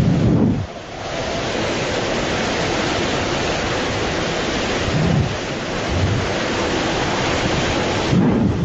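Hurricane wind and storm-surge water: a loud, steady rushing noise, with wind gusts buffeting the microphone at the start, around five and six seconds in, and again near the end.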